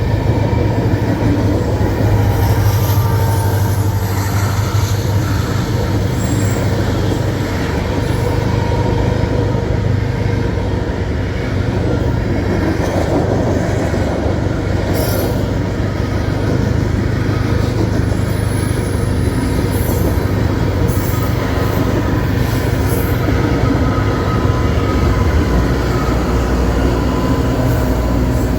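Freight train rolling past: a steady rumble of wheels on rail, with thin high squeals from the wheels now and then.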